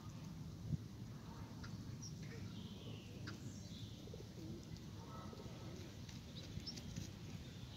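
Birds chirping and calling here and there, with soft cooing, over a low steady rumble; one sharp knock just under a second in.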